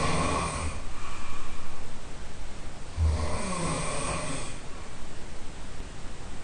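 A person snoring, heard from the next room: one snore trails off just under a second in, and another comes about three seconds in and lasts about a second and a half, with a low rattle under each.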